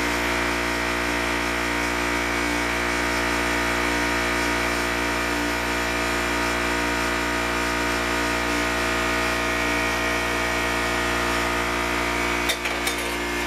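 A steady, unchanging machine hum, as of a small motor running. About a second before the end it changes, and a few sharp clicks and knocks come in.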